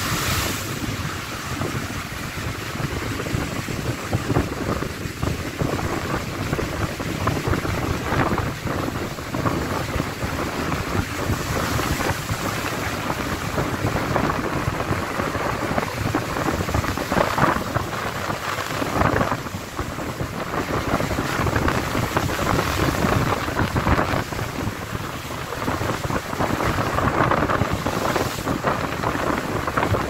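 Rough sea in a gale: waves breaking and surging against a rock-armour breakwater, with foam hissing and strong wind buffeting the microphone, a constant loud rush that swells every few seconds.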